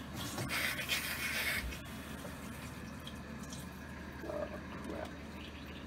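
Bathroom faucet water rushing for about a second after being turned on, then cutting off abruptly. The faucet's strainer is clogged with dirt from the supply lines.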